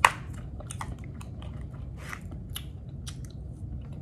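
Close-up mouth chewing of chewy food: small wet clicks and smacks. A sharp click from the plastic forks at the very start is the loudest sound.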